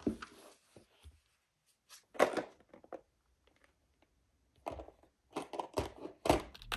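Paper being handled while a page is added to a journal: several short rustles and scrapes, with a quiet pause in the middle.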